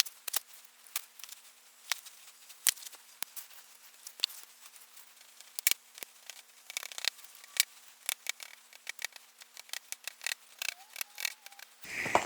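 Irregular sharp clicks and light taps, a few a second at times, with uneven gaps.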